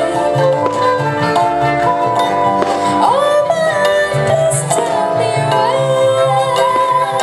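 Instrumental passage of a pop song: held melody notes over a steady, regular bass line, with a sliding phrase about three seconds in.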